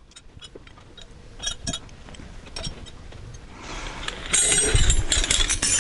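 Steel wrenches being handled on a table: scattered light clinks of metal on metal, then from about three and a half seconds in a louder, continuous clatter as the tools are gathered and moved.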